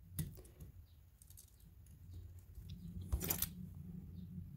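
Faint clicks and rustles of an electrical receptacle and its stiff wires being handled and turned over, with one louder scrape a little over three seconds in.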